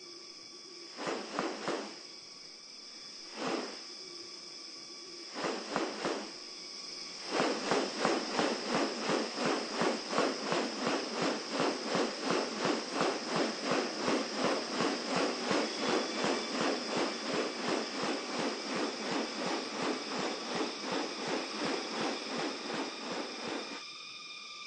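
Rainforest insects droning with a steady high whine. A few short separate buzzes come first, then about seven seconds in a fast, evenly pulsing buzz starts and keeps going until just before the end.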